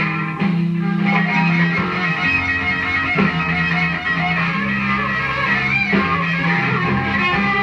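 Blues record playing on a Philips 447 record player: electric guitar over a bass line that moves in steps.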